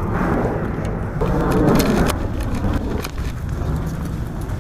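Footsteps crunching on dry leaves and twigs, with a run of sharp crunches and clicks in the middle, over a loud steady outdoor rumble.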